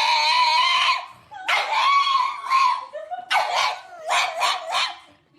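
A dog giving three long, drawn-out pitched vocal calls, the last one broken into quick pulses.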